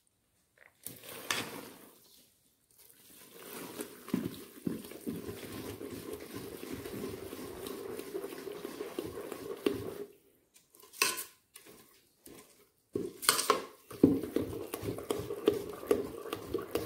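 A spoon stirring thick, fermented rice-and-coconut palappam batter in a bowl: wet churning, with the spoon knocking against the bowl a few times. The stirring stops briefly a couple of times.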